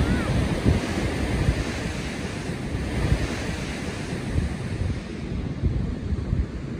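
Ocean surf washing steadily, with wind buffeting the microphone in irregular gusts.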